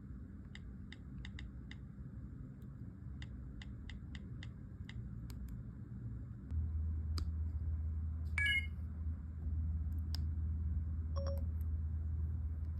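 iPhone 5 keyboard clicks under iOS 6, as a text message is typed, in two quick runs of taps. Then a short electronic alert chime of several high tones about eight and a half seconds in, and a few brief beeps near the end, over a steady low hum that starts about halfway through.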